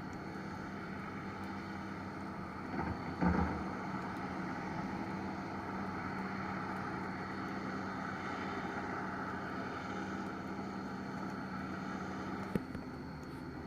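Doosan DX225LCA excavator's diesel engine running steadily. A short thump comes about three seconds in and a sharp click near the end.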